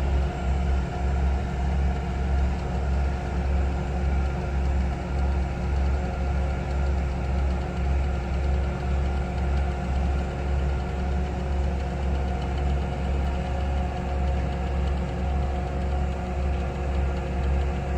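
Diesel engine of heavy construction machinery running steadily under even load, a low, slightly pulsing rumble with a steady hum above it.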